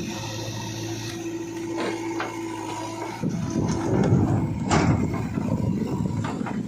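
Heavy diesel machinery running steadily, then about three seconds in a louder rough rumble with scattered knocks and clatter takes over.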